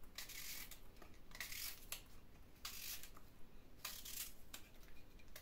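Tap water running faintly into a large pickle jar packed with vegetables, filling it for the brine, in a few stretches with short breaks.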